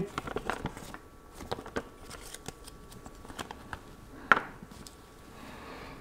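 Folded paper leaflets rustling and crinkling as they are handled and unfolded, with scattered light clicks and one louder rustle about four seconds in.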